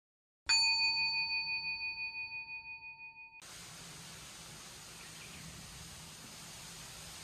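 A single struck bell chime rings out about half a second in with a pulsing, fading decay and is cut off about three seconds later. A faint steady outdoor hiss follows.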